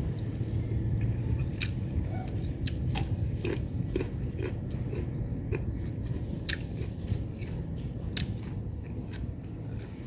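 Close-up eating sounds: chewing, with scattered sharp wet clicks and light crunches from the mouth.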